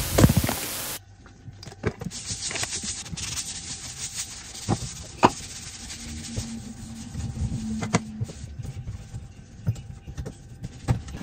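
A car's low rumble and a brief rush of noise that cut off about a second in, then kitchen cleaning: a cloth wiping a worktop, with scattered clicks and knocks of bottles and items being picked up and put down.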